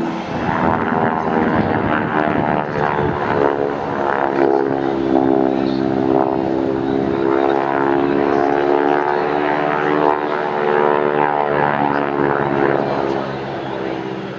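North American SNJ / T-6 Texan's nine-cylinder Pratt & Whitney R-1340 radial engine and propeller running at display power overhead, a steady drone whose pitch sags and rises gently as the plane manoeuvres.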